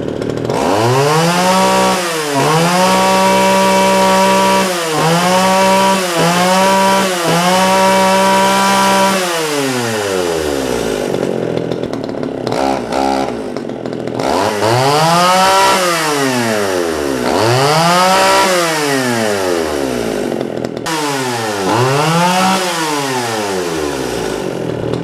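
Vintage Echo 440EVL two-stroke chainsaw revved up and held at high speed for several seconds, with a few brief dips, before dropping back to idle. It is then revved up and let back down three more times, each rise and fall smooth.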